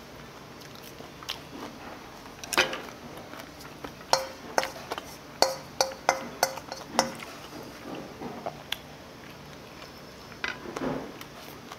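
Tableware clinking: a spoon and chopsticks knocking against bowls and plates, with a run of about nine quick ringing taps on one bowl about four seconds in, lasting some three seconds.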